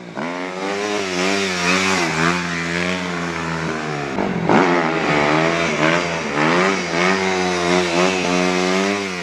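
Suzuki RM-Z250's single-cylinder four-stroke motocross engine held at high revs through a wheelie, the throttle feathered so the pitch wavers up and down. Near the middle the revs drop briefly and climb again.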